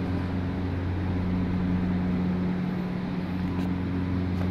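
A steady low hum, unchanging in pitch and level, as from a motor or electrical equipment running.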